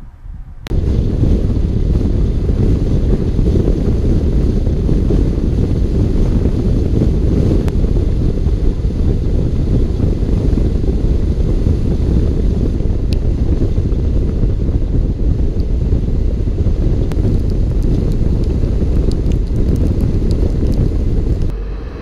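Loud, steady wind buffeting a GoPro's microphone while it travels at road speed on a moving vehicle. It starts abruptly about a second in and falls away just before the end.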